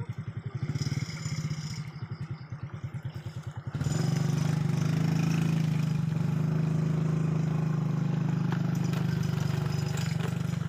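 Small underbone motorcycle engine idling with a fast, even pulsing beat, running after being soaked in muddy water. A little over a third of the way in, it changes abruptly to a louder, steady motorcycle engine drone.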